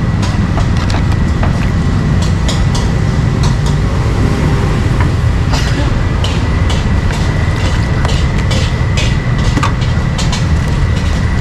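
Busy street-market ambience: a steady low rumble with frequent light clicks and clatter, over a faint steady high-pitched tone.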